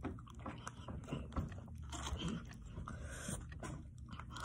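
Soft mouth sounds of eating ice cream off a plastic spoon: scattered quiet smacks and chewing.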